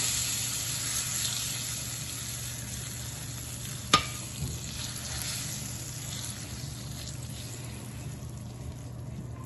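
Hot tempering oil with popped mustard seeds, dals and dried red chillies sizzling as it hits the sorrel paste in a frying pan, the sizzle slowly dying down as it is stirred in with a spatula. One sharp tap of the spatula on the pan about four seconds in.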